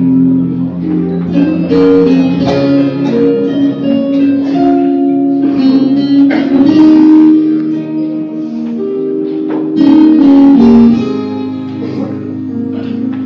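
Guitar playing a chordal instrumental introduction, with notes struck again and again. The choir is not yet singing.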